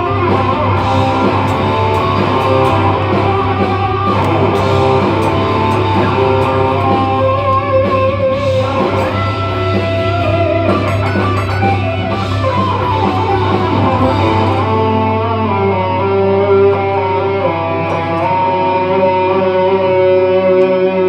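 Electric guitar music: guitar notes played over a steadily held low note, with some notes wavering in pitch about eight to twelve seconds in.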